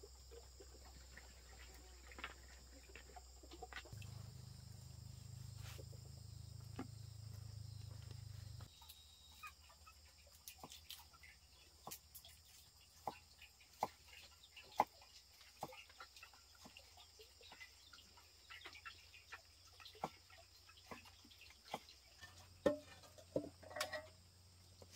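Chickens clucking: many short, sharp clucks scattered through, with a few louder pitched calls near the end. A low hum runs for several seconds in the first half.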